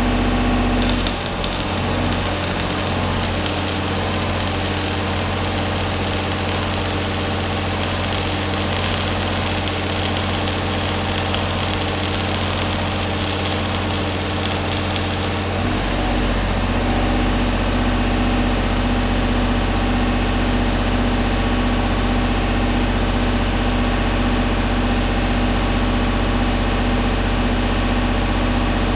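Engine-driven welding machine running steadily, with the crackle of a dual-shield flux-core welding arc for about fourteen seconds starting about a second in. The engine note changes as the arc starts and again when it stops, and the engine runs on afterwards.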